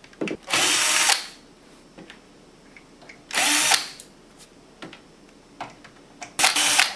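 Cordless power screwdriver running in three short bursts of about half a second each, backing out the screws that hold the power supply in an HP LaserJet 4250 printer's metal frame. Light clicks come in between the bursts.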